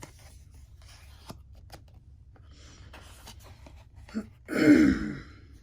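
Faint rustling and clicking of oracle cards being handled, then about four and a half seconds in a woman clears her throat loudly.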